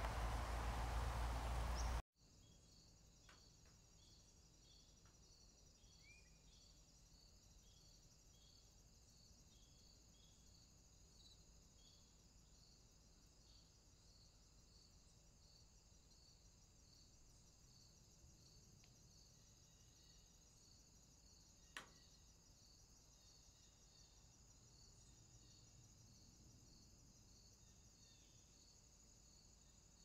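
Faint bush cricket stridulation: a steady high chirping in regular pulses, about two a second, over a thin high hiss. One sharp click about twenty-two seconds in. For the first two seconds a louder outdoor noise plays, then cuts off abruptly.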